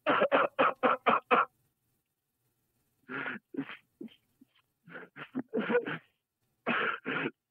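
A man sobbing and gasping on a 911 call recording: a quick run of about six short, choked sobs, a pause of about a second and a half, then more broken sobs and gasps. It has the thin sound of a telephone line.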